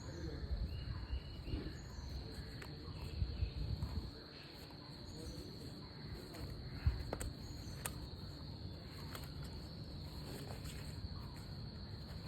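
Insects trilling steadily at one high pitch, over a low rumble, with a few faint clicks about seven to eight seconds in.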